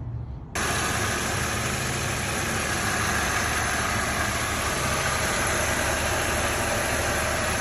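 Car engine idling steadily, cutting in abruptly about half a second in: plausibly the E46 330i's 3.0-litre inline-six running after the power steering repair.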